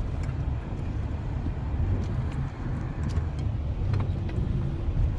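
Car running on the road, heard from inside the cabin: a steady low rumble of engine and tyres with a few faint ticks.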